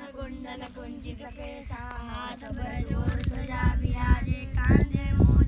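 A child and women singing, the voices bending and holding notes. A low rumbling noise builds up under the singing from about halfway through.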